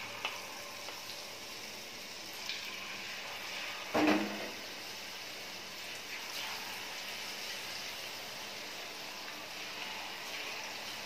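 Batter-coated chicken pieces deep-frying in hot oil in a pan: a steady sizzle that flares slightly as more pieces are dropped in. A brief voice-like sound about four seconds in is the loudest moment.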